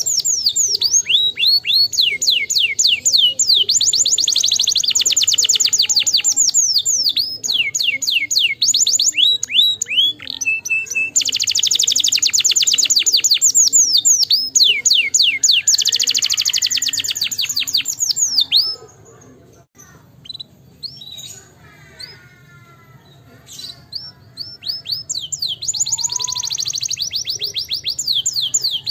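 Domestic canary singing long, rapid trills of repeated downward-sweeping notes. About two-thirds of the way through it breaks off into a few seconds of softer, scattered notes, then the fast trills return near the end.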